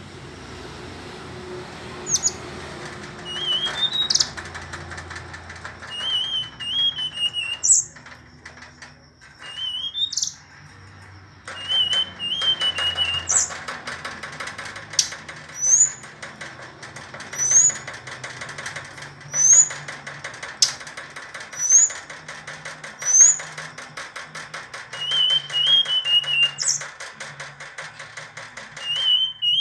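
Verditer flycatcher singing: a string of short, sharp rising whistled notes every second or two, mixed with wavering warbled phrases, over a continuous buzzy rattling chatter.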